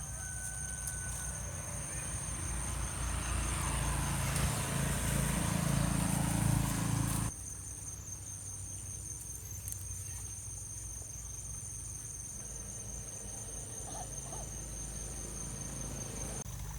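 Insects trilling steadily at a high pitch. A rushing noise swells over the first seven seconds and cuts off abruptly.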